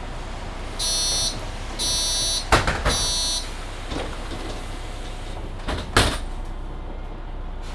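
Door-closing warning on a Mercedes-Benz Citaro C2 hybrid city bus: three beeps about a second apart, then the passenger doors shut with knocks about two and a half and six seconds in, over the bus's steady low running hum.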